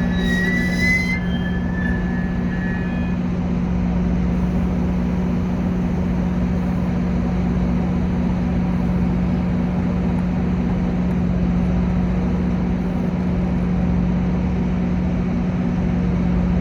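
Diesel passenger train at a station, running with a steady loud low drone. A high metallic squeal sounds over the first three seconds, rising briefly about a second in.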